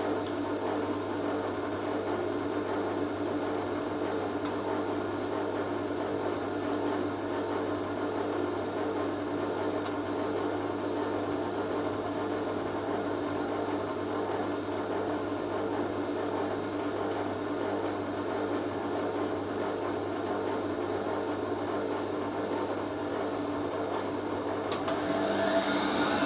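Hoover A3060 washing machine running steadily in its final spin sequence, with a constant motor hum from the turning drum. Near the end the motor starts to speed up, and a rising whine builds as it heads into the high-speed spin.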